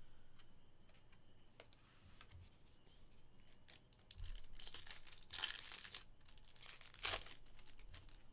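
Foil trading-card pack being torn open. A few soft clicks of cards being handled come first, then a crinkling rip starts about four seconds in, with a sharper, louder tear about seven seconds in.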